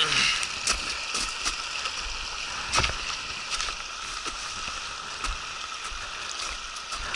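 Footsteps crunching on gravel and crusted snow, as irregular clicks over a steady rushing hiss of wind and river water. One heavier step lands about three seconds in.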